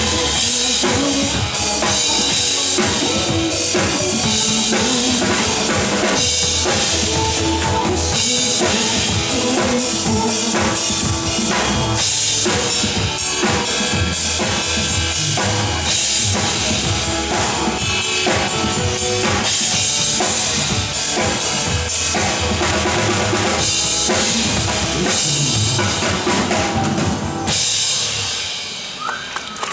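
Drum kit played live over a recorded pop backing track, with steady kick, snare and cymbal hits. The song ends and the music stops shortly before the close.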